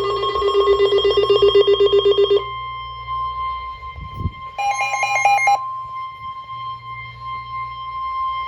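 Emergency alert tones: a fast pulsing electronic alarm for about two and a half seconds, then the steady single-pitch tone of about 1050 Hz used by NOAA Weather Radio to announce a warning, with a short burst of quickly alternating electronic beeps about two seconds into it.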